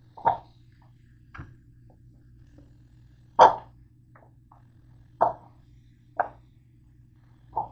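Chunks of cut cantaloupe dropped one at a time into a stoneware bowl, six soft plops a second or two apart, the loudest about halfway through.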